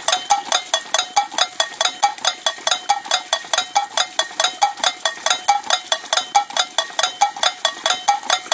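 Homemade bird-scaring rattle in a rice paddy clacking rapidly and evenly, about five to six strikes a second, each strike with a short ringing note.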